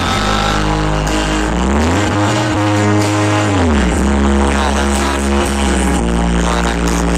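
A live rock band playing through a PA system: sustained bass and keyboard notes under the band, with a slide up in pitch about two seconds in and back down near four seconds.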